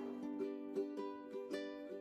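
Background music: a light instrumental of quick plucked-string notes.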